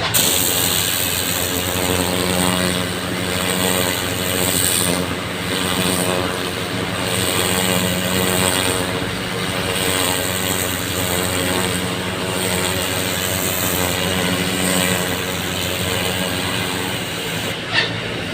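An engine runs steadily, with the hiss of water jetting from a hose and rising and falling as the spray is moved about while the ground is flushed clean.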